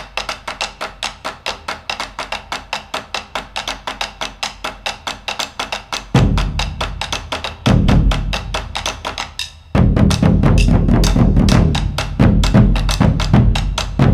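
Percussion music: a fast, even ticking beat of about six strokes a second. A deep bass drum comes in about six seconds in, drops out briefly, then returns and keeps going.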